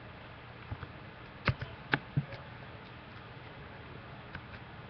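A handful of light clicks and taps, bunched in the first half and a couple more faintly later, over a steady low room hum.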